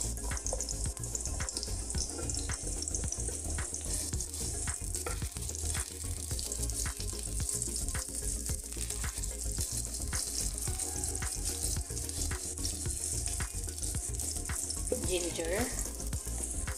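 Sliced onions sizzling in hot oil in a wok, stirred with a wooden spatula that knocks and scrapes against the pan every so often.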